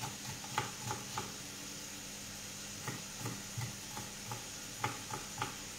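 Knife tapping on a wooden cutting board in irregular light strokes as a small onion is cut, over the faint steady sizzle of oil frying in a pan.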